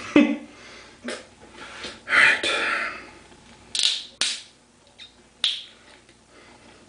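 A string of sharp clicks and taps from objects being handled, with a short rush of noise about two seconds in.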